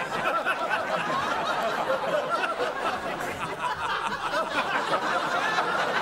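Many people laughing and chuckling together, a continuous dense wash of laughter with overlapping voices.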